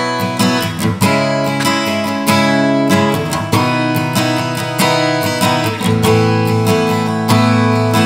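Strinberg SD201HC TOS steel-string acoustic guitar, strung with .012 Solez strings, playing a simple chord passage, strummed and picked with a fresh stroke every second or so. It is heard through a condenser microphone, not the guitar's built-in preamp pickup.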